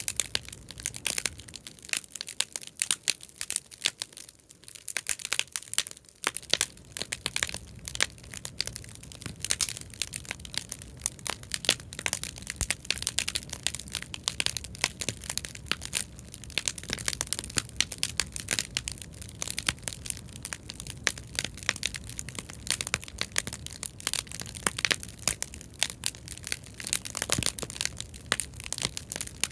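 Bonfire of scrap-wood offcuts burning, crackling and popping densely and irregularly, with a low rumble of the flames underneath that fades a few seconds in and then comes back.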